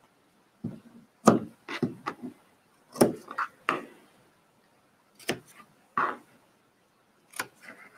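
Fabric shears snipping notches into the edge of knit fabric: about a dozen short, sharp snips and clicks in small clusters.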